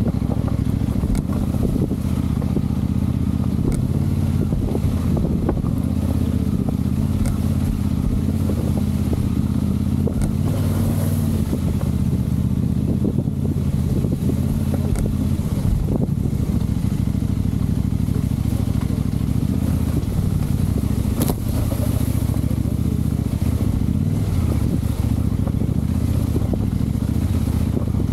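Motorcycle engine running steadily, its pitch shifting a little now and then.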